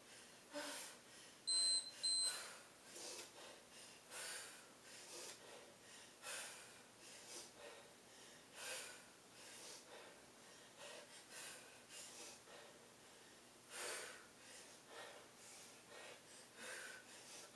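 A woman breathing hard from exertion, with short sharp exhales roughly once a second. About a second and a half in, two short high electronic beeps of an interval timer sound, and they are the loudest thing heard.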